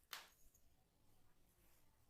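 Near silence: quiet room tone, with one short, soft scratch just after the start.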